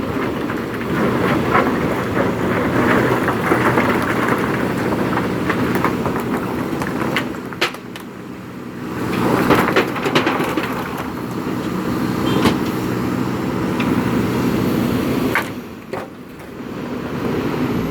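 Diesel engine of a JCB 3DX Super backhoe loader working, rising and falling with load and getting louder about halfway through, with several sharp knocks and clatter of stones being handled.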